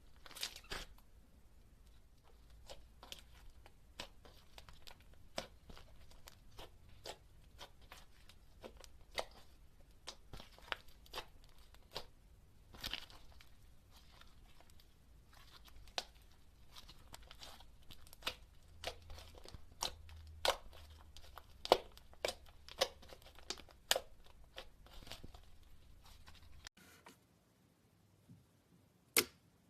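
Slime being squeezed and pulled by hand, giving irregular sticky crackles and pops.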